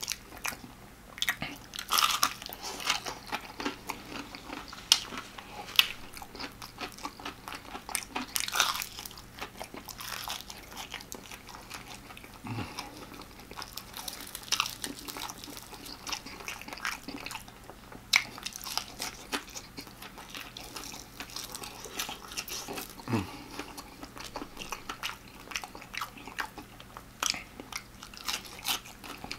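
Extra-crispy fried chicken being bitten into and chewed, the crisp breading crunching in irregular sharp crackles.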